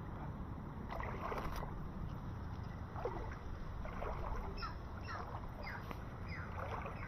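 A bird gives short calls that fall in pitch, a few at first and then a quicker run in the second half. Under them runs a steady low rush of water moving around the swamp.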